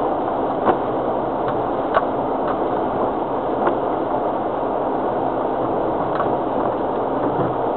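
Cabin noise inside a Land Rover Freelander TD4 diesel driving a wet, rutted off-road track: a steady drone of engine and tyres, with a few sharp knocks from jolts, the loudest about a second and two seconds in.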